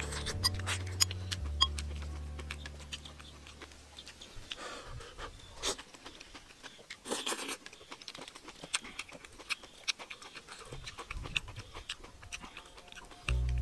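Close-up eating sounds from a person eating rice and boiled greens with chopsticks: sharp clicks of the chopsticks against the porcelain bowl, chewing, and a couple of short slurps as the sauce-dipped greens are sucked in. Background music fades out over the first few seconds and comes back near the end.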